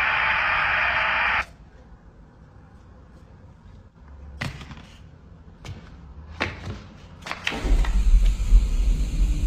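Television static hissing, cutting off abruptly about a second and a half in. A few soft knocks follow in the quiet, and near the end a low rumbling horror score swells in.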